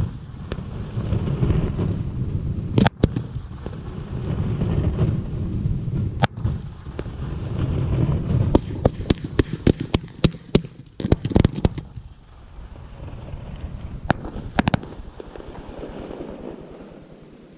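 Fireworks display: aerial shells bursting with sharp bangs, including a rapid string of reports in the middle, over a continuous low rumble of echoing explosions that fades toward the end.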